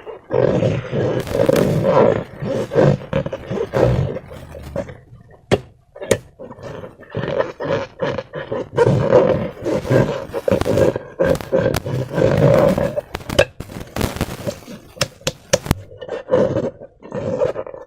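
Slime and transparent rubber balloons being worked by hand: an irregular run of rough, rubbery sounds with many sharp clicks, broken by a few short pauses.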